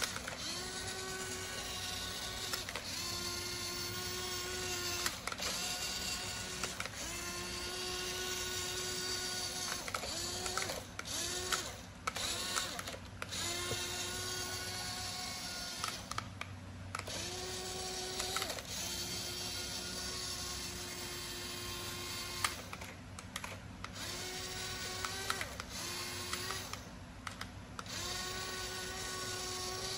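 Small electric motors of a toy remote-control tractor whining in short runs of one to two seconds, starting and stopping over and over, with the pitch dipping slightly as each run starts and light clicks between runs.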